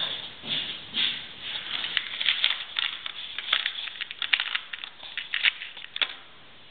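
Screws and small metal parts clicking and rattling in a plastic toolbox organizer tray as a hand rummages through the compartments; the rattling stops about six seconds in.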